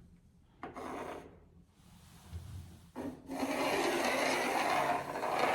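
A pencil drawn along a spirit level to mark a long vertical line, a steady scraping stroke from about three seconds in, after a brief rub about half a second in.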